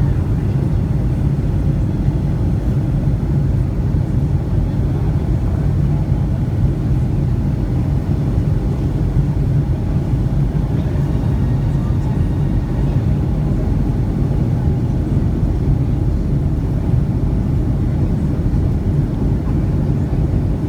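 Steady low rumble of cabin noise inside a Boeing 757-200 airliner: engine and airflow noise, unchanging throughout.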